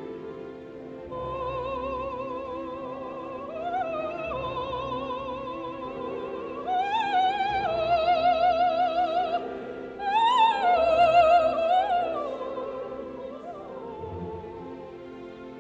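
Background music: an operatic voice singing long held notes with wide vibrato over sustained orchestral accompaniment. The voice grows loudest in the middle and fades toward the end.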